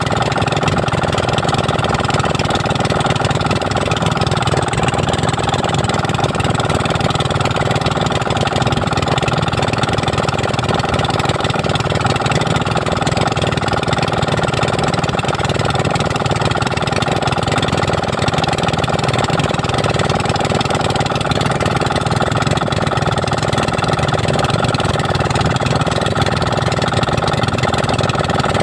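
A motorized bangka's engine running steadily at an even speed.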